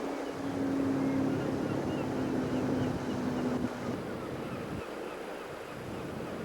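Boat motor humming steadily over wind and water noise, the hum stopping about four seconds in, with faint high chirps in the background.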